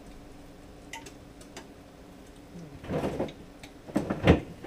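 Jars and containers clinking and clattering as they are moved about in an open refrigerator. There are a few light ticks at first, then louder clatters about three seconds in and again near the end, which are the loudest.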